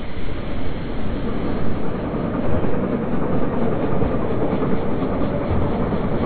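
Train running along the track: a steady noise of wheels on rails.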